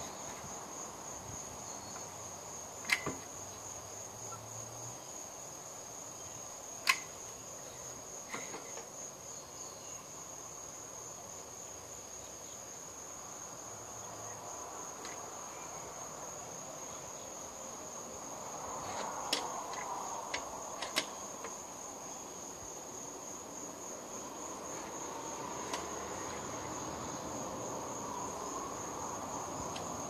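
Steady high-pitched trilling of insects, with a few sharp clicks and taps scattered through it: two loud ones early and a cluster of three past the middle.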